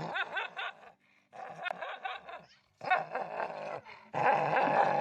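A dog growling and barking, in four stretches of about a second each with short pauses between.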